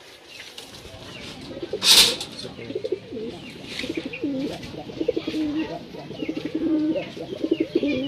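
Kolongan domestic pigeons cooing repeatedly in low, warbling phrases: the courtship cooing of a young male in breeding condition being paired with a female. A brief loud noise comes about two seconds in.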